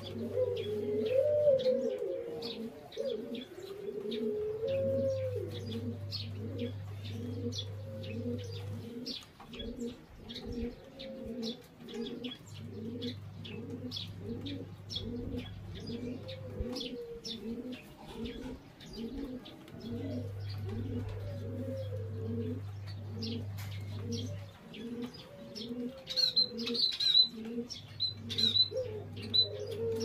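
A chorus of Barbary doves (burung puter) cooing in a steady rhythmic pulse, with small birds chirping in quick high notes over them.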